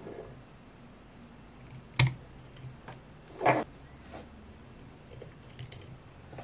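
Small hand cutting tool clicking and snipping at the thin motor wires that come out of a scooter hub motor's hollow axle: one sharp click about two seconds in, a short rasp a moment later, and a few faint ticks near the end.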